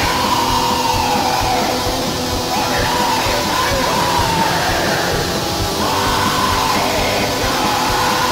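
Heavy metal song: a dense, steady wall of distorted guitar and drums with a harsh yelled voice over it, drawn out in long rising-and-falling phrases.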